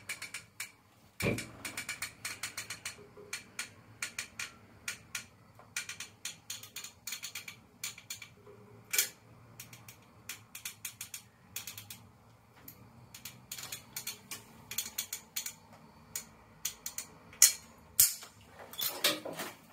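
Hand-held sealant gun clicking over and over as its trigger is squeezed and released, pushing silicone sealant out: a steady patter of sharp clicks, several a second, with a louder knock about a second in.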